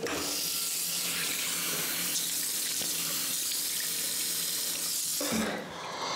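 Water running from a wall-mounted tap into a ceramic vessel sink, a steady hissing splash as hands scoop it up to the face. It starts at once and cuts off about five seconds in.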